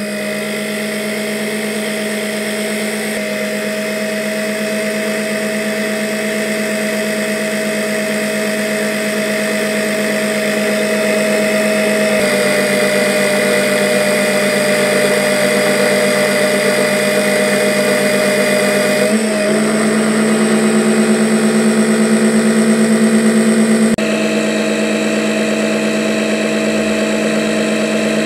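A 12-volt electric oil extractor pump switched on: its motor starts abruptly and runs with a steady hum, growing a little louder over the first twenty seconds as it draws engine oil out through the hose.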